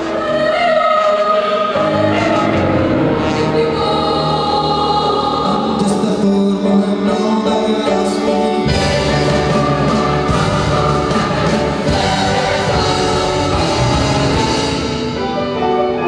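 A mixed choir singing with an orchestra accompanying. The low instruments come in more fully a little past halfway.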